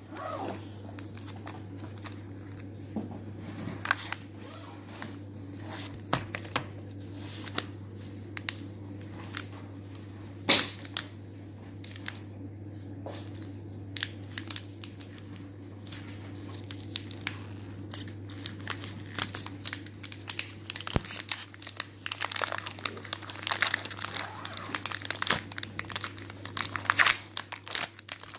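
Packaging of a Milka Happy Cow product crinkling and tearing as it is opened by hand. Sharp crackles come irregularly throughout and grow denser near the end, over a steady low hum.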